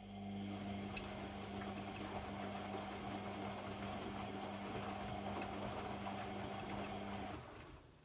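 AEG Lavamat 50435 washing machine's drum motor turning the drum during the main wash: a steady hum with wet laundry tumbling and sloshing, which stops about seven seconds in.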